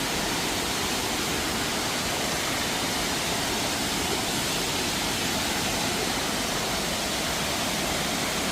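Rushing water, as of a waterfall: a steady, even rush with no breaks.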